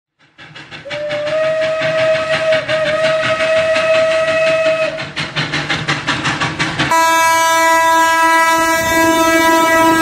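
SMB solar wild animal and bird repeller's loudspeaker playing a recorded train: rhythmic wheel clatter under a long, steady horn blast. About seven seconds in it switches abruptly to a different steady horn tone.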